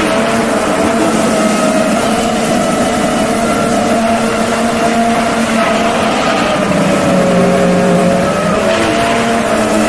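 FPV racing drone's electric motors and propellers whining loudly, heard from the camera mounted on the drone. The pitch shifts with the throttle, dipping about seven seconds in and sliding back up near the end.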